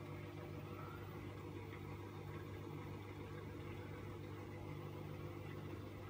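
LG F14U1JBS2 inverter direct-drive washing machine running near the end of its Speed 14 quick cycle: a steady, faint hum that holds even throughout.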